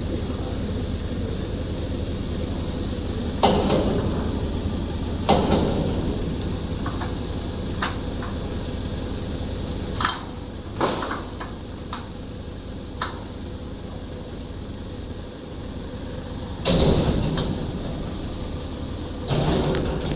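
Heavy metal clanks and knocks from steel machine parts being fitted together, about six loud ones with a ringing tail and some lighter clicks between, over a steady low machinery hum.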